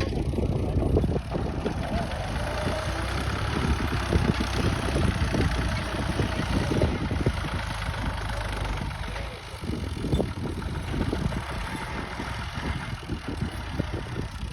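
Al-Ghazi tractor's diesel engine running steadily while pulling a plough, with a rapid knocking beat; it eases off a little about ten seconds in.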